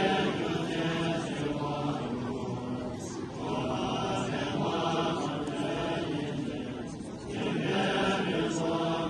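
Several voices chanting together in long, sustained phrases that swell again after short breaks, twice.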